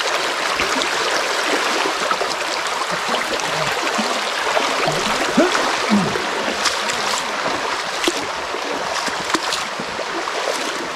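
Creek water running steadily over rocks, a continuous rushing sound, with a few short knocks in the second half.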